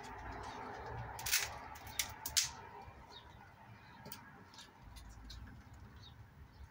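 A few sharp clicks and knocks from objects being handled, three of them close together in the first half, over a low steady background with faint bird chirps.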